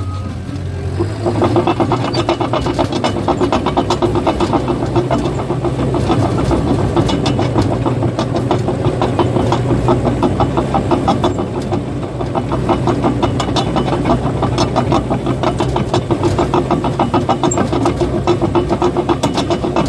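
Caterpillar bulldozer's diesel engine running, with its steel tracks rattling in a fast, even rhythm that starts about a second in as the machine moves.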